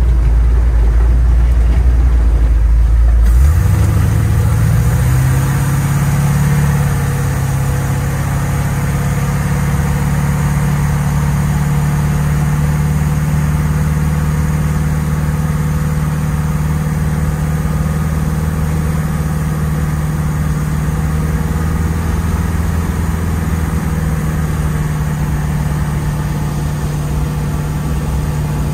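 Chevrolet 350 small-block V8 in a Land Rover Series IIA 109 running as the truck is driven, heard from inside the cab. The engine note climbs sharply about three and a half seconds in as it accelerates, then settles into a steady cruising drone with road noise.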